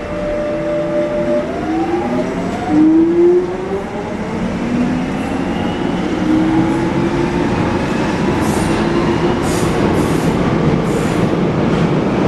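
London Underground Jubilee Line 1996 Stock train pulling away and accelerating: its traction equipment whines in a series of rising pitch glides that step upward. The rumble of wheels on rail builds beneath it, and rail clicks come in near the end as it picks up speed.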